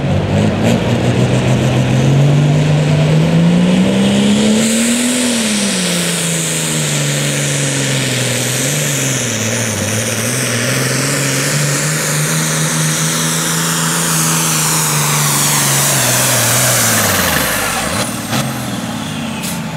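Turbocharged diesel engine of a Super Farm class pulling tractor working at full load down the track. The revs climb over the first five seconds, sag and waver, hold fairly steady, then drop away sharply near the end as the throttle comes off, with a high turbo whistle riding on top.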